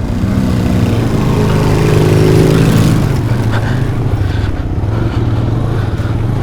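Motorcycle engine pulling away, its pitch climbing for about three seconds, then dropping and running steadily.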